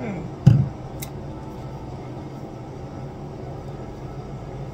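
A plastic mousse pump bottle is set down on a counter with a thump about half a second in, followed by a sharp click, over a steady low hum.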